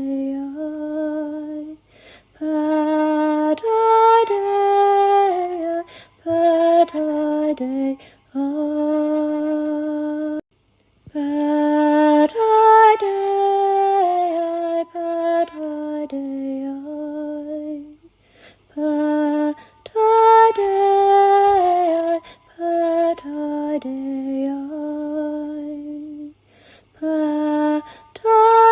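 A woman's solo voice singing slow, chant-like phrases a cappella, with long held notes that glide between pitches, broken by short pauses.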